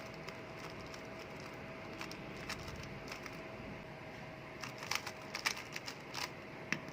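Rubik's cube being turned through an OLL algorithm: quick plastic clicks of the layers turning, scattered at first and then a fast run of turns about five seconds in.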